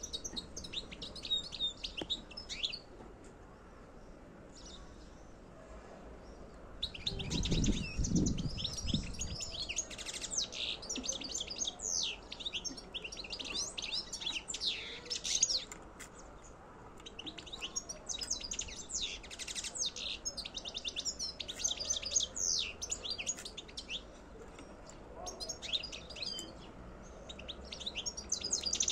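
European goldfinch singing a rapid, high twittering song in bouts several seconds long with short pauses between them. A brief low rumble comes about seven seconds in.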